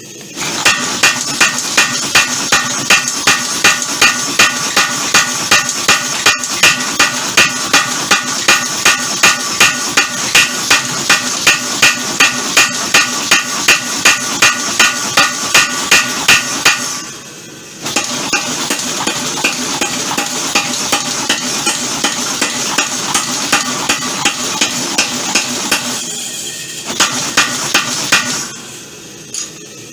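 Homemade power hammer striking hot leaf spring steel with ringing metallic blows, about three a second and very even, for some sixteen seconds. After a brief stop it runs again with lighter, closer blows for about eight seconds, then a few heavy strikes near the end.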